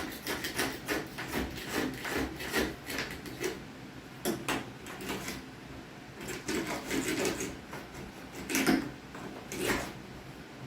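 Quick scraping and rubbing strokes as caulk is cleaned off by hand, several a second at first, then slower and more spaced out, with a few louder scrapes near the end.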